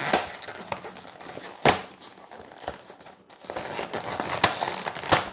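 Stiff clear plastic clamshell packaging crinkling and crackling as it is pried and pulled apart by hand, with several sharp snaps of the plastic, the loudest about a second and a half in.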